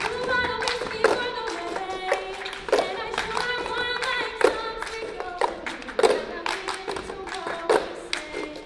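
Girls' choir singing with a solo voice on top, over the cup-game rhythm: sharp hand claps and plastic cups struck on the stage floor, coming every half second to a second.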